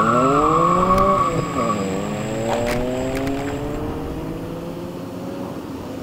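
A car pulling away hard with its tires squealing. The engine revs up steeply, drops at a gear change less than two seconds in, then climbs again in the next gear as it pulls away and fades.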